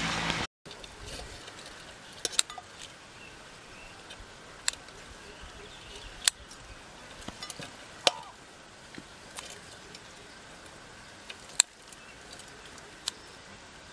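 A loud sound with steady tones cuts off sharply about half a second in. Then comes a quiet outdoor background with scattered single sharp clicks and ticks, one every second or two.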